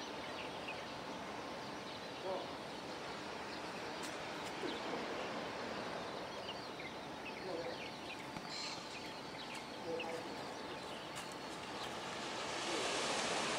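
Outdoor ambience: a steady wash of background noise with scattered small bird chirps and a few faint distant calls. The noise swells near the end.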